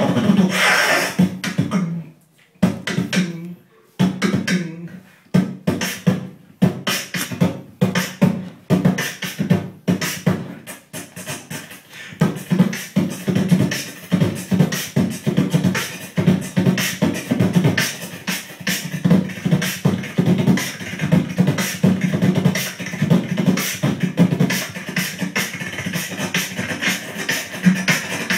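Freestyle beatboxing into a handheld microphone: rapid mouth clicks and pops over a low hummed tone, breaking off briefly a couple of seconds in before running on steadily.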